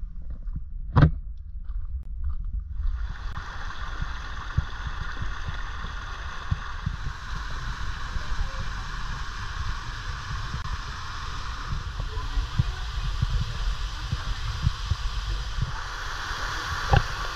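Waterfall and cascading stream water rushing as a steady hiss, coming in suddenly about three seconds in. Low rumble and thumps on the action camera's microphone run underneath, with a sharp knock about a second in and another near the end.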